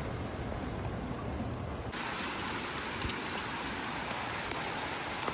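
Steady rush of falling water from a waterfall, coming in abruptly about two seconds in over a low rumble, with a few faint ticks.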